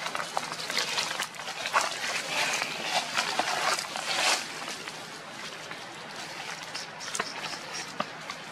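Dry fallen leaves crackling and rustling under macaques moving over the leaf litter: a dense run of irregular crackles that thins out about halfway through, leaving only a few scattered ones.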